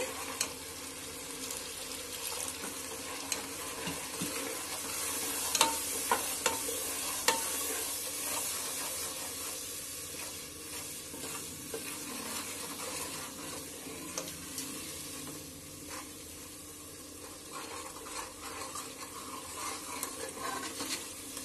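Spice masala sizzling in oil and a little water in an aluminium pressure cooker, stirred with a steel ladle that clinks sharply against the pot a few times, most between about five and eight seconds in. The masala is being fried down with water so the spices cook through.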